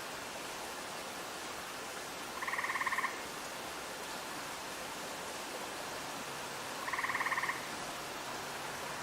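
A frog calling twice with short pulsed trills, each under a second long and about four seconds apart, over a steady hiss.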